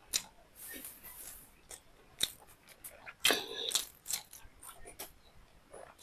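Close-miked eating sounds: a person chewing a mouthful of beef liver and rice, with wet mouth smacks and sharp clicks scattered throughout and a louder, longer smack a little past the middle.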